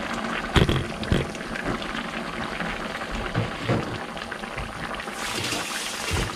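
Thick red chicken-and-potato braise (dakdoritang) boiling in a frying pan on a gas burner: steady bubbling with many small pops and sizzles, and a louder hiss for about a second near the end.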